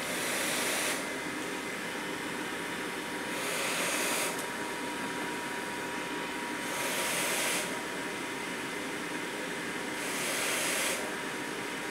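Quantum PSV pressure-support ventilator running: a steady blower hiss that swells into a rush of air for about a second, roughly every three and a third seconds, as it delivers each breath against its partly taped-over outlet. A faint steady high tone joins about three seconds in.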